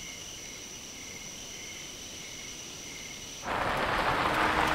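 Night insects, crickets, chirring steadily, one of them trilling in regular pulses. About three and a half seconds in, a sudden cut to a much louder rush of noise: a car driving along a dirt road, tyres on the unpaved surface.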